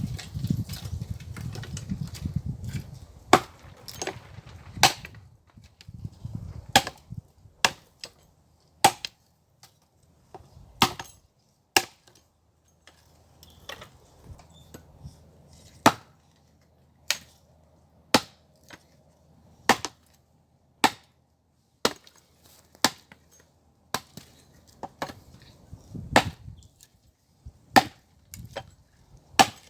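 Firewood being chopped: a long run of sharp, separate blows of a blade into wood, roughly one a second with short pauses between groups.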